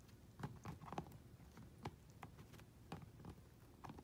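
Standard poodle puppy gnawing a chew bone: faint, irregular crunching clicks of teeth on the bone, about three a second.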